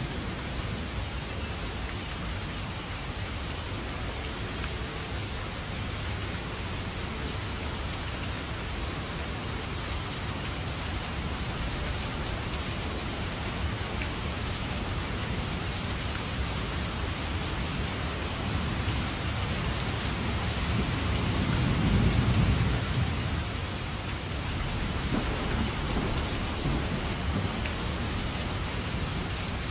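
Heavy rain falling steadily as an even hiss, with a low rumble of thunder that swells and fades about three-quarters of the way through.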